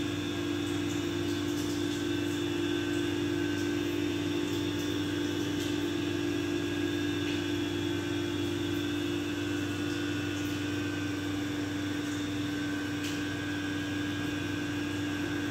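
Steady machine hum, like a motor or appliance running, with a constant low drone and fainter high whines, and a few faint clicks.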